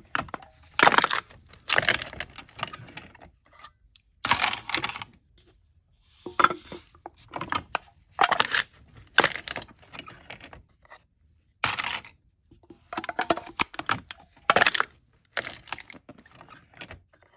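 Aluminium drink cans being crushed: crisp crinkling and crunching of thin metal in about ten short bursts with brief pauses between.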